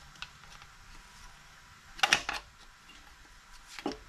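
Wooden stick knocking against the piston and connecting rod as the number 3 piston is driven out of the BMW N55 block's bore: a short cluster of sharp knocks about two seconds in, and a single smaller knock near the end.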